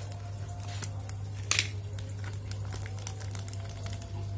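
Thin plastic fish bag crinkling in the hands as a betta is tipped out of it into a small glass tank, with one short, louder rush of noise about a second and a half in. A steady low hum runs underneath.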